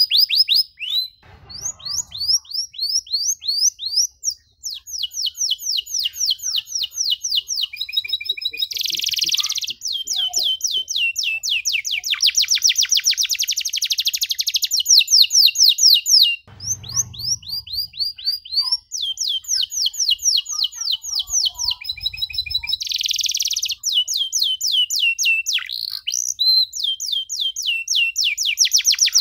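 Domestic canary singing long runs of fast, high, repeated trill notes, switching from one trill phrase to another, with short breaks about a second in and about halfway through.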